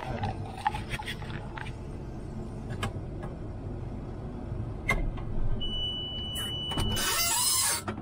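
Combine engine running, heard from inside the cab, with scattered clicks from the controls. Near the end a steady high beep sounds for about a second, followed by a loud hiss lasting under a second.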